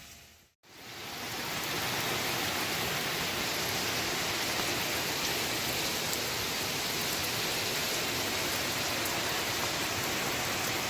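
Heavy rain pouring down: a steady hiss of falling drops that fades in about a second in.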